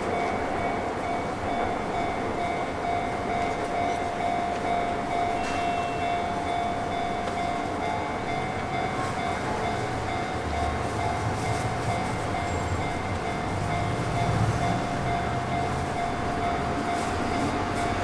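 Sotetsu Line electric train at the station beside a level crossing, with the crossing's warning bell ringing steadily over the train noise. A low rumble swells for a few seconds in the second half.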